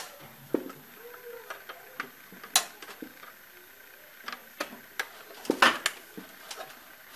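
A handful of short plastic clicks and taps as a power-supply cable connector is worked into the back of a computer's optical disc drive, with the wire bundle rubbing against the sheet-metal case. The loudest clicks come about two and a half and five and a half seconds in.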